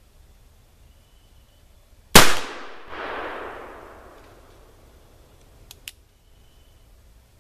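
A .44 caliber Pietta replica of the Colt 1851 Navy black powder revolver fires a single shot, and its report echoes and dies away over about two seconds. Two light clicks follow near the end.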